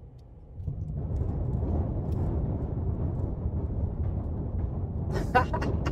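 Car tyres running over the wooden plank deck of a covered bridge, heard from inside the car: a loud, dense, uneven low rumble that starts suddenly just under a second in.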